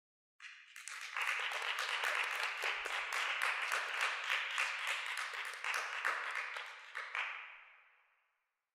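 Applause: many hands clapping, starting abruptly about half a second in, holding steady, then fading out near the end.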